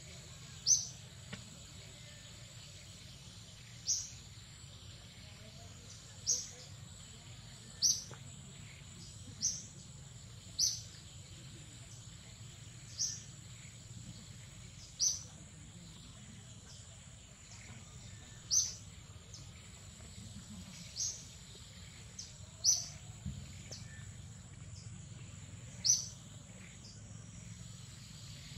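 A bird repeating a short, high, falling call about a dozen times, every couple of seconds, over a steady high-pitched insect drone.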